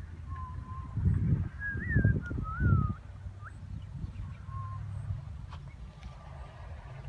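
Small birds calling with short whistled chirps, some rising and some falling in pitch, over a low rumble that swells three times in the first few seconds.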